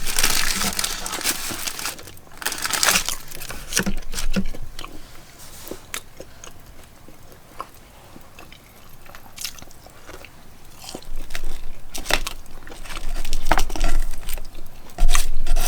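A person biting into and chewing crunchy fried food, a corn dog and french fries meal. Loud crunchy bites come in the first few seconds and again near the end, with quieter chewing in between.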